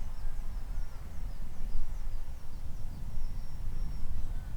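Wind buffeting the microphone with a steady low rumble, while a small bird chirps over it in quick, high, falling notes, about three a second.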